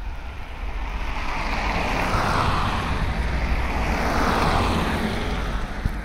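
Vehicles passing close on a slushy, snow-covered road: tyre hiss swelling twice, about two and about four seconds in, over a low rumble of wind on the microphone.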